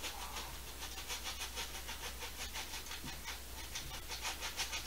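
Stiff paintbrush scrubbing and dabbing oil paint onto a stretched canvas in quick repeated strokes, about five a second, with a dry bristly scratching sound.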